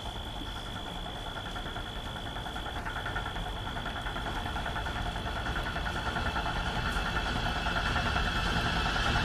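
A low rumbling drone with a pulsing upper layer that swells steadily louder, a tense background-score build; a thin, steady high whine over it stops about three seconds in.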